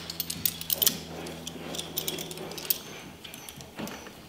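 Pliers squeezing a copper crimp sleeve onto ground wires in an electrical box: metal clicks and clinks. They come in a quick cluster in the first second, then thin out to scattered clicks.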